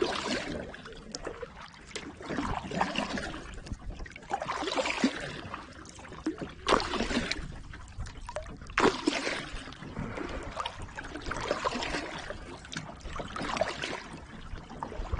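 Kayak paddle strokes through the water, a splashy swish about every two seconds, with two sharp knocks midway.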